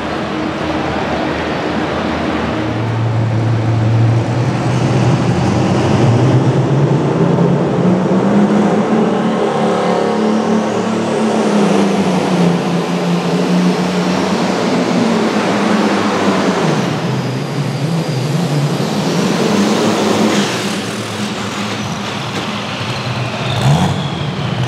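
Light limited super stock pulling tractor engine running hard under load, its note bending up and down, with a high whistle rising about ten seconds in. The engine note drops lower near the end, with a sharp knock just before the end.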